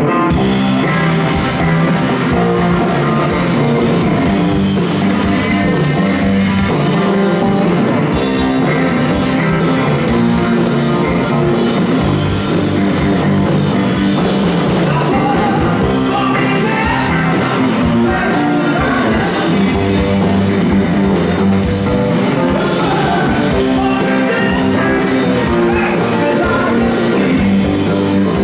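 Live rock band playing an electric blues-rock song on two electric guitars, bass guitar, drum kit and keyboard, the drums filling in more fully about eight seconds in.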